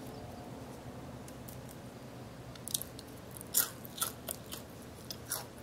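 Crisp homemade french fries being bitten and chewed close up, with a handful of sharp crunches in the second half.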